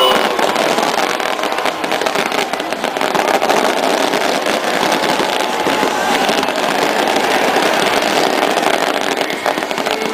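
Dense, loud crackling of firecrackers going off in a football stadium, over the noise of the supporters' crowd.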